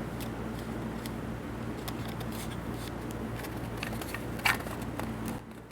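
Small clicks and taps from a handheld LED video light being handled and its knob turned, over a steady low hum that stops just before the end. One sharper click comes about four and a half seconds in.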